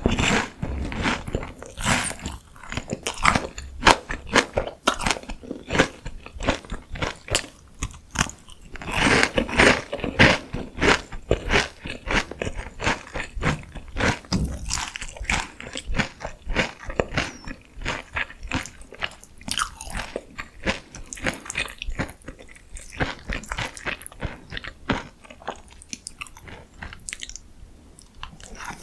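Close-miked biting and chewing of crunchy food, a continuous run of crisp crackles and crunches that grows busiest about nine seconds in.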